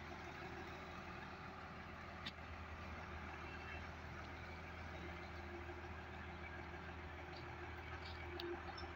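Heavy truck engine running steadily at a low hum, with one sharp click a little over two seconds in.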